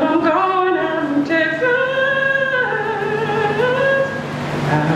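Blues song with a singer holding long, sliding vocal notes over a steady low accompaniment.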